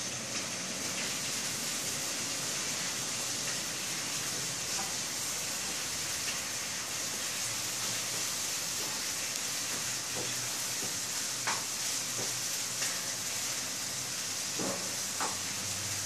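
Steady high-pitched hiss, with a few faint ticks and taps over it.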